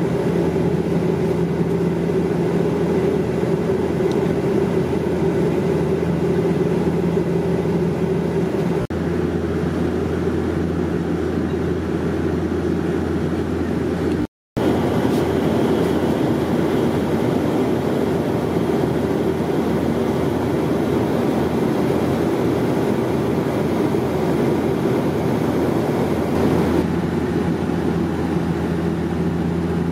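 Cabin noise of a Bombardier Q400 (Dash 8-400) turboprop in flight: a steady drone from its Pratt & Whitney PW150A engines and six-blade propellers, with a constant low hum underneath. The sound cuts out completely for a moment a little before halfway.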